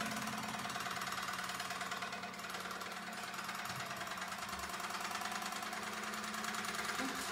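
A fast, even buzzing rattle with a steady hum beneath it, played on a percussion table; it runs evenly, dipping slightly about two seconds in.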